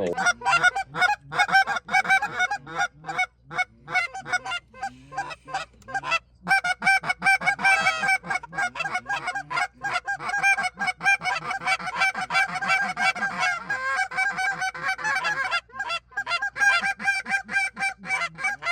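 Rapid, continuous goose honking: short, loud, repeated honks and clucks, several a second, without a break.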